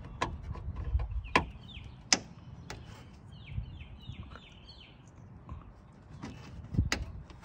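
Plastic push-pin trim clips being pressed into the trunk-lid liner: a few sharp plastic clicks and snaps, the loudest near the start and near the end. A bird gives a short run of falling chirps in the middle.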